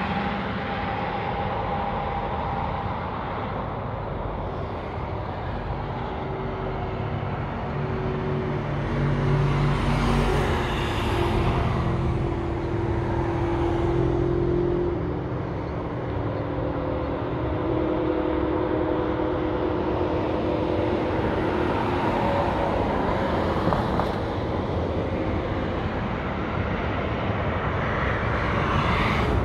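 Interstate highway traffic: a continuous wash of tyre and engine noise from passing vehicles. A louder vehicle passes about ten seconds in and another near the end, with droning engine tones through the middle.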